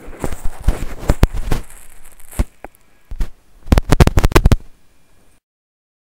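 Crackling and sharp clicks recorded through a bone conduction headset used as a pickup. A dense crackle lasts about two and a half seconds, then a few scattered clicks, then a quick cluster of loud clicks around four seconds in. The recorder takes these for 'microwave hearing' carrying a voice.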